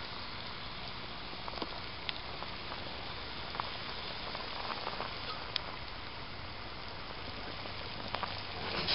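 Small pot of soup at a steady boil over an Esbit solid-fuel tablet stove: an even bubbling hiss with a few small ticks.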